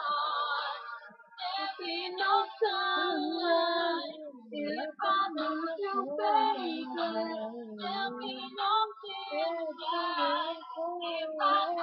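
A girl singing, long held notes that waver in pitch, in phrases with short breaks between them.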